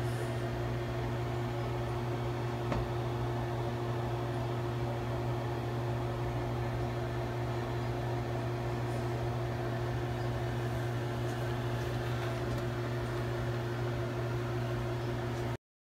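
Steady low machine hum with a second, higher steady tone over it, a single faint click about three seconds in; the hum cuts off suddenly near the end.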